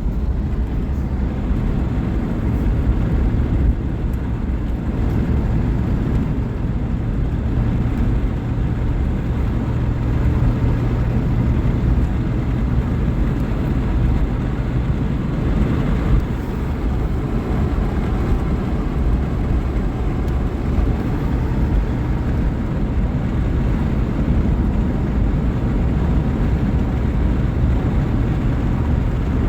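Vehicle driving at a steady pace: an even, loud low rumble of engine and road noise.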